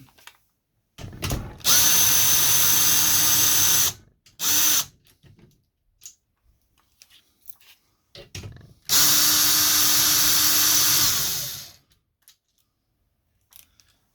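Power drill running in two steady runs of about two and three seconds with a short burst between them, the second winding down at the end, as a metal heat-shield plate is fixed in place. Small clicks and knocks of handling between the runs.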